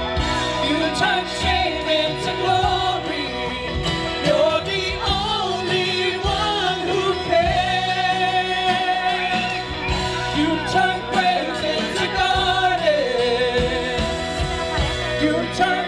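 Worship band music with a lead voice singing long notes that slide up and down over the full band.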